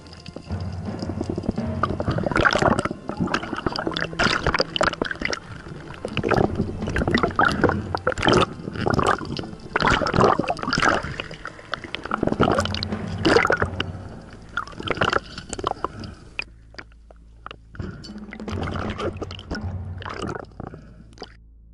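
Underwater knocking, scraping and gurgling as a freediver handles a speared barracuda on the spear shaft, heard through a camera housing. The knocks come thick and irregular, then thin out over the last few seconds.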